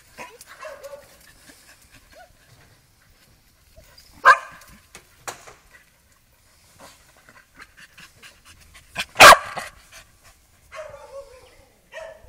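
Dogs at play: two loud barks, about four seconds in and about nine seconds in, with a few short, softer whines between.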